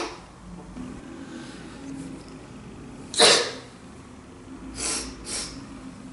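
A girl sneezing loudly once about three seconds in, followed by two short breathy sounds; the tail end of another sneeze is heard at the very start.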